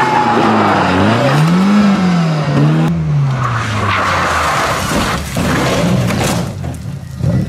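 A Toyota rally car's engine revving up and down hard through a hairpin. Then a second rally car slides with tyre skidding noise and strikes an earth bank, with a few sharp impact thuds about two-thirds of the way in.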